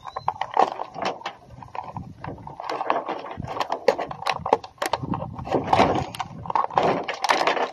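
Dense clicks, knocks and scraping of parts being handled while an old battery charger is taken apart and its small internal wires are pulled out.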